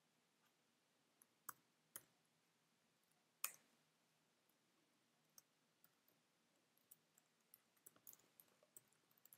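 Faint clicks of a computer keyboard and mouse: a few separate clicks in the first few seconds, the loudest about three and a half seconds in, then a quick run of key taps near the end as code is typed.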